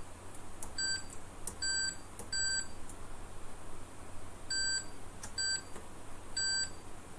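Multimeter continuity beeper sounding in six short, unevenly spaced beeps, each about a third of a second, as the test probes make and break contact on the calculator's contacts. Faint clicks of the probe tips come between the beeps.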